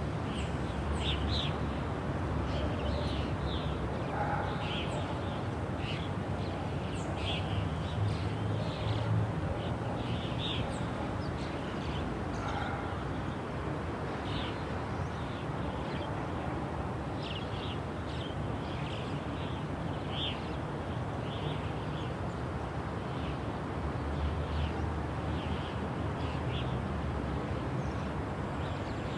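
Many birds chirping in short high calls, scattered throughout, over a steady low rumble of city traffic.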